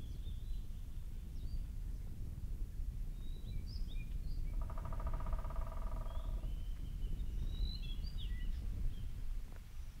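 Small woodland birds chirping and calling over a steady low rumble. A rapid pulsed trill lasts about two seconds near the middle.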